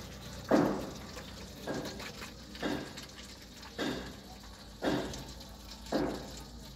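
Old engine oil draining in a thin stream from the oil pan of a Maruti Suzuki Swift diesel after the drain bolt is removed, a pouring, liquid sound. Over it comes a run of six evenly spaced noisy pulses, about one a second, which are the loudest thing heard.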